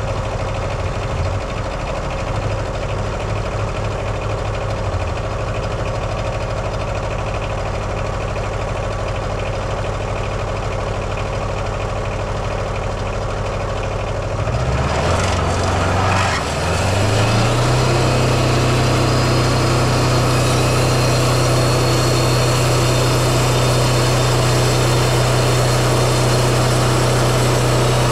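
Kohler 17 hp diesel engine of a Wood-Mizer LT15 sawmill running steadily at low speed, then revving up about halfway through and holding at a higher, steady speed.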